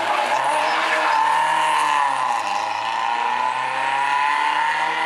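Engine of a classic Alfa Romeo coupé rally car running hard as the car passes and pulls away uphill, its note rising and falling with the throttle.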